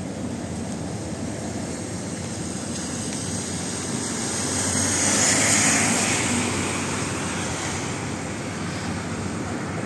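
Steady rushing noise of rain and fast-flowing floodwater, with a louder hiss that swells and fades about five to six seconds in.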